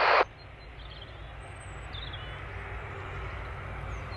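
Low, steady rumble of distant aircraft engines, growing slowly louder, with a few faint high chirps.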